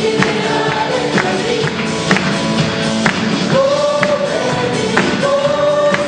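A choir singing with live band accompaniment: held sung notes over a steady beat of about two percussion hits a second.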